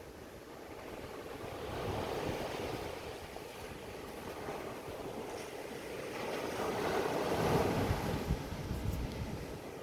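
Ocean waves washing in, a rushing surge that swells about two seconds in and again, louder, around seven to eight seconds in.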